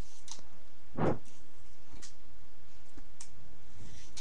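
Fingerboard knocking and clicking against a metal flat bar rail and the desk it stands on: a handful of sharp clicks, with one heavier knock about a second in.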